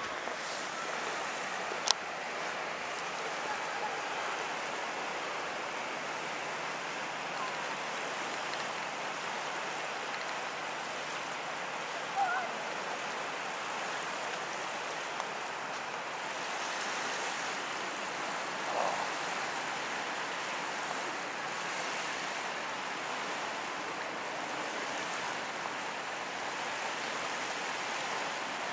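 Small waves breaking and washing onto a sandy shore, a steady even rush of surf, with a sharp click about two seconds in and two brief faint higher sounds later on.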